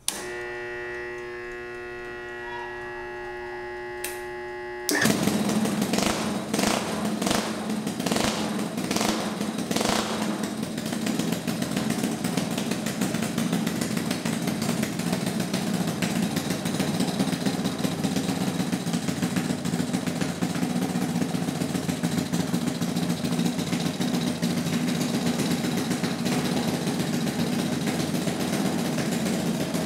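A steady electric hum, then about five seconds in a homemade two-cylinder boxer engine, built from single-cylinder engines, starts with a few sharp uneven cracks and settles into steady running.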